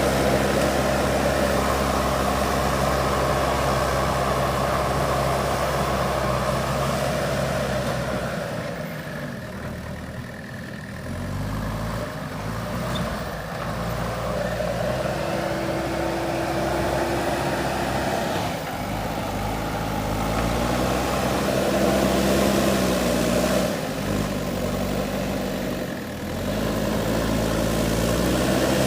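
JCB backhoe loader's diesel engine running while working. Its revs hold steady, sag about a third of the way in, then rise and fall again and again.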